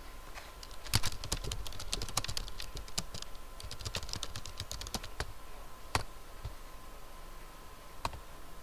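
Typing on a computer keyboard: a quick run of keystrokes lasting about four seconds, then a couple of single clicks.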